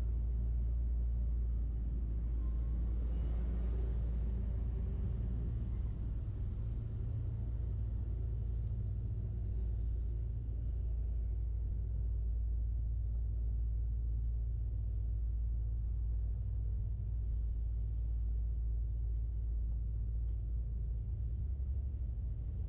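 City street traffic: a steady low rumble, with a vehicle passing by about three to four seconds in.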